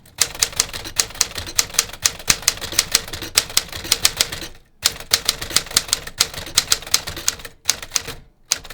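1954 Smith Corona Silent Super manual typewriter typed on quickly: a fast, even run of key and typebar strikes, about five a second, with a brief pause about halfway.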